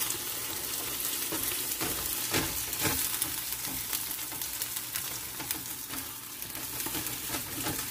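Food sizzling in a frying pan, a steady hiss with a few light knocks about two to three seconds in.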